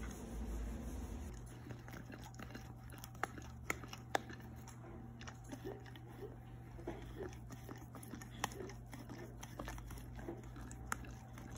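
A husky licking into the neck of a plastic drink bottle: quick, irregular wet tongue clicks and smacks against the plastic, several a second.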